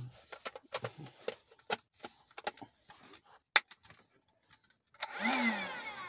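Plastic clicks and knocks as a handheld car vacuum cleaner is handled and its parts fitted, with one sharp click about three and a half seconds in. Near the end its small motor runs in a sudden burst, its whine falling in pitch as it winds down.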